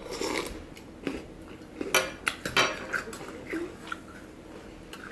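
Scattered clinks and knocks of tableware on a table, with a brief rustle at the start and the sharpest knocks about two seconds in.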